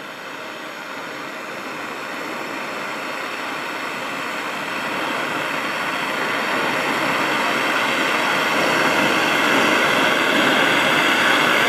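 Propane hand torch burning with a steady hiss, growing gradually louder, as its flame heats a brass tube and copper plate to flow a solder ring into the joint.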